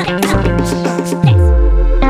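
Background music led by plucked guitar over bass, with a deep falling bass hit just after a second in.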